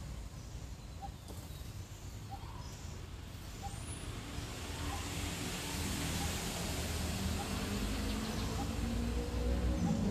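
Outdoor background: a low rumble that grows steadily louder, with a bird repeating a short single note about once a second. Music begins to fade in at the very end.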